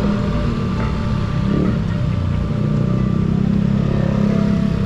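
Motor scooter running steadily under way in traffic: a continuous engine hum with road noise, and other motorbikes close by.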